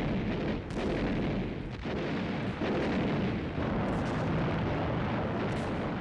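Heavy shellfire: a continuous barrage of explosions over a steady rumble, with fresh blasts landing about once a second.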